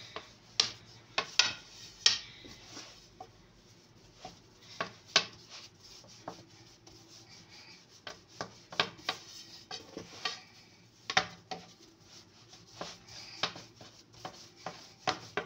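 Long thin wooden rolling pin (oklava) rolling out stiff dough on a floured stone countertop: a dry rubbing with many irregular light clicks and knocks as the pin rolls and shifts under the hands.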